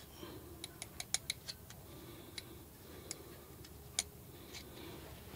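Scattered sharp, light clicks, with a quick run of them about a second in and a few single ones after, from small brake caliper parts being handled while a caliper slide pin is greased.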